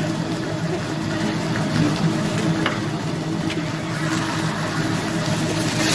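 Vegetables sizzling on a teppanyaki griddle over a constant low mechanical hum, with a couple of faint clicks.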